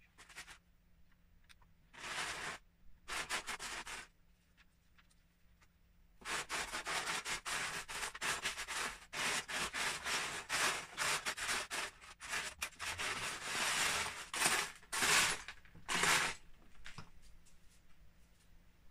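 Loose Lego bricks clattering and rattling as a hand rummages through a pile of them in a plastic storage tub. Two short bursts come first, then a long stretch of steady rummaging from about six seconds in that stops near the end.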